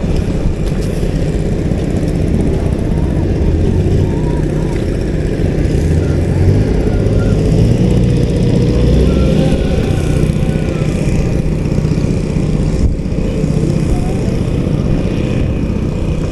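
A small engine running steadily at a constant pace, with faint voices in the background.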